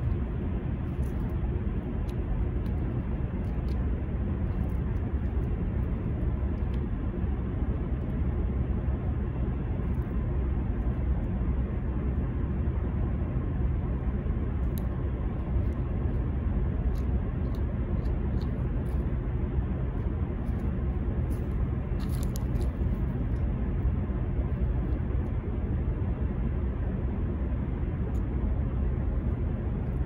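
Steady low outdoor rumble, with a few faint, short high ticks scattered through it and a small cluster of them about two-thirds of the way in.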